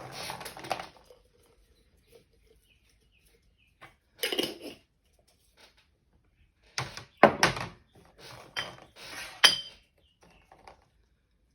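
Kitchen handling sounds: four short bouts of clattering and scraping of kitchenware, with a few sharp knocks.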